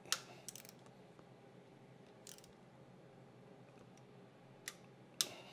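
Socket ratchet on an extension turning the rocker-shaft pedestal nuts of a cylinder head: a handful of sharp, scattered metallic clicks over a faint low hum.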